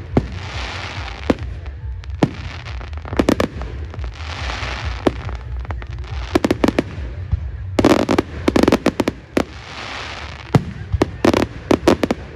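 Aerial fireworks bursting: repeated sharp bangs, some single and some in quick clusters of several, with spells of crackle from crackling-star effects between them.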